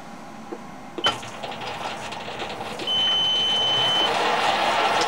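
Sieg SC4 bench lathe being started: a sharp click about a second in, then a single high beep lasting about a second as the machine comes on. The lathe then runs steadily and noticeably louder.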